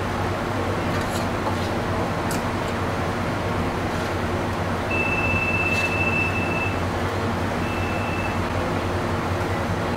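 Steady indoor room hum with a few faint clicks, and a high, steady beep-like tone sounding twice, first for about two seconds midway and then briefly near the end.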